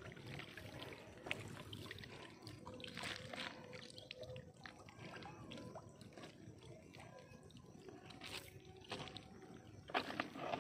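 Water dripping and splashing as a wet fine-mesh fishing net is hauled and gathered in shallow pond water, with a couple of louder splashes near the end.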